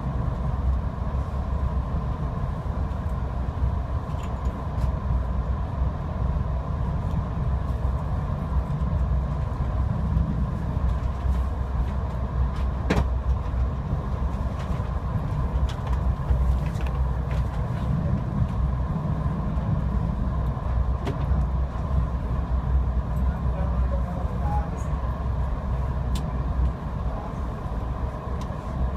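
Inside a moving VIA Rail LRC passenger coach: the train running along the track with a steady low rumble. A faint steady whine sits above it, and a few sharp clicks come at irregular intervals.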